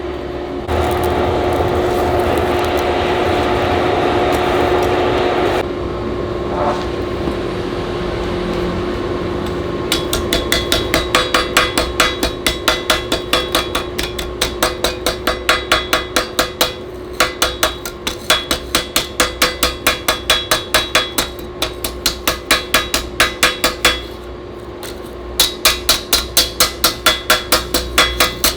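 Hammer beating hot steel on an anvil while forging a knife blade: rapid, regular blows about four a second, each with a ringing note, starting about ten seconds in and pausing briefly twice. For the first five seconds a loud, even rushing noise is heard instead, and a steady hum runs under it all.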